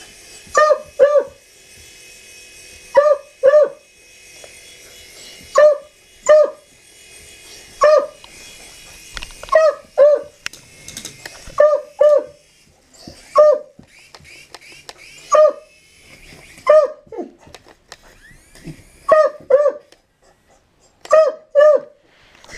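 A dog barking repeatedly at a remote-controlled helicopter: short, sharp barks, often in quick pairs, about one burst every second or two.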